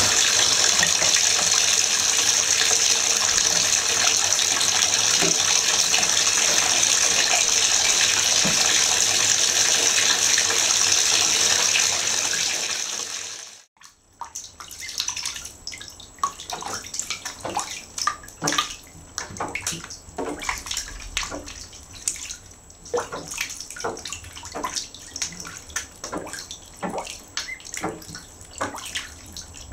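Bath tap running steadily into a bathtub, shut off sharply about thirteen seconds in. After that come light, irregular splashes and drips as ducklings paddle and dabble in the shallow water.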